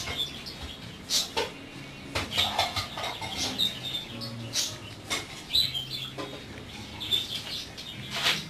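A few short, high bird chirps among frequent sharp knocks and rustles.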